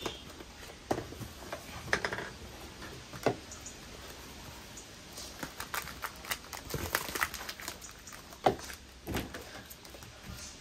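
Packaging rustling and crinkling with scattered light knocks as wrapped succulent plants are unpacked and set down; the crinkling is busiest around the middle, with a few sharper knocks before and after.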